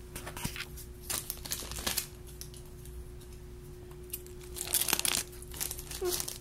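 Plastic toy packaging crinkling and tearing as it is pulled open, in rustling bursts about a second in and again near the end.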